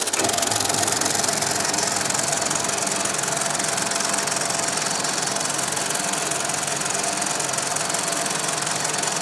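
Krupp Ernemann 35 mm film projector running at speed: a steady, dense mechanical clatter from its film mechanism and spinning sprockets, with a faint steady whine.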